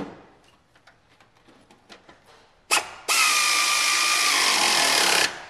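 A sharp click at the start, then a power tool spinning a bolt down for about two seconds: a loud steady whirr starting a little past halfway and cutting off sharply just before the end. It is tightening the bolt on the steering column's triangular mounting plate.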